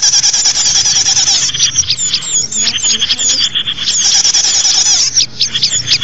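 Small songbirds singing, several at once, in rapid high trills and quick chirps: a lure recording used to call in small birds for trapping.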